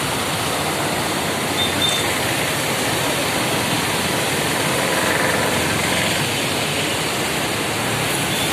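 Floodwater of the Krishna river rushing in a steady, even wash of noise, the river in spate.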